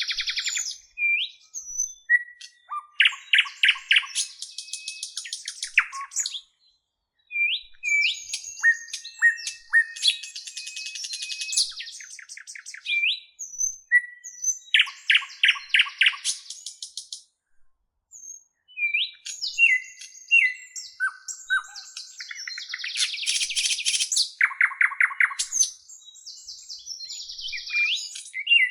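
A songbird singing long, complex phrases of sweeping whistles, rapid trills and buzzy notes, each phrase repeated in much the same pattern with short pauses between.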